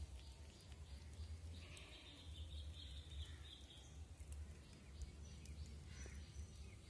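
Faint outdoor ambience with a steady low rumble, and a distant animal call a couple of seconds in.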